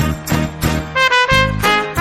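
Swing-style music: a trumpet plays a melody of short pitched notes over a band backing of bass and drums.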